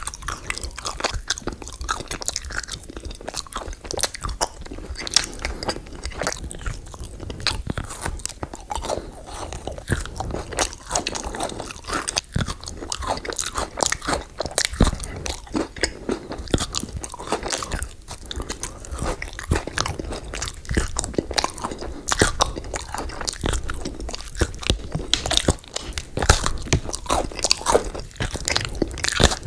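Close-miked eating: a person biting and chewing crunchy sweet food, with many quick, irregular crunches and crackles.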